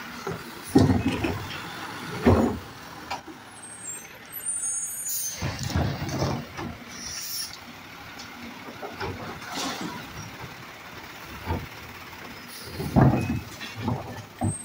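Automated side-loader garbage truck's hydraulic arm gripping, lifting and tipping wheeled trash carts into the hopper and setting them down, over the truck's running engine. Loud bangs from the carts and the arm about a second in, at two seconds, and again near the end, with a rush of noise from trash and air about five to seven seconds in.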